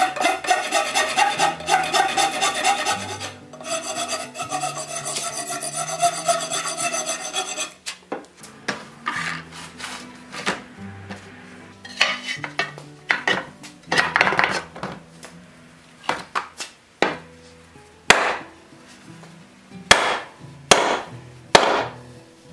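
A hand file scraping back and forth along the tapered end of a wooden wagon axle in quick, steady strokes, stopping about eight seconds in. Then come scattered rubbing strokes on the wood and several sharp knocks near the end.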